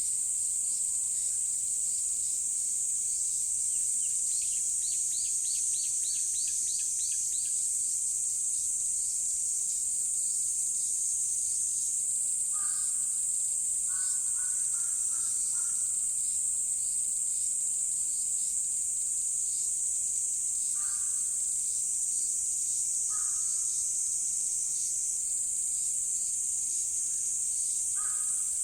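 Insects calling in a steady high-pitched chorus, with a quick run of high bird notes a few seconds in and short, lower-pitched calls at intervals later on.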